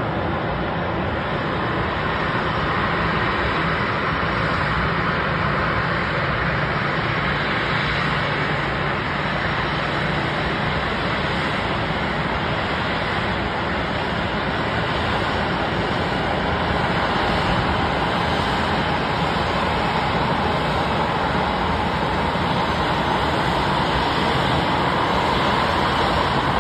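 Steady noise of an airplane in flight, heard from inside the cabin, edging slightly louder about halfway through.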